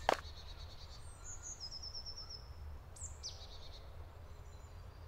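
Woodland birds singing faintly: a quick trill of repeated high notes, then a sharp downward-sliding call about three seconds in, over a steady low rumble. A single knock sounds at the very start.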